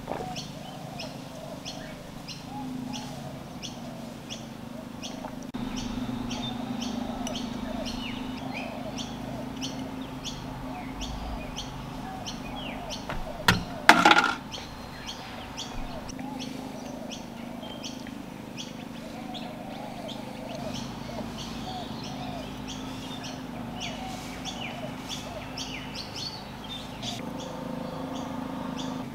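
Small birds chirping steadily in the background, many short high calls, over a low steady hum. A brief loud knock about halfway through.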